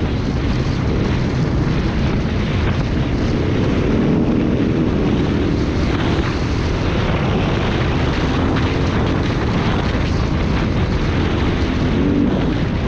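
Dual-sport motorcycle engine running steadily under way on a dirt road, its note rising and falling a little, with wind rushing over the microphone.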